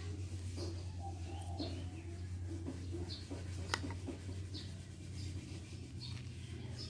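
Small bird chirping, short high chirps repeated every second or so over a steady low hum, with one sharp click a little past halfway.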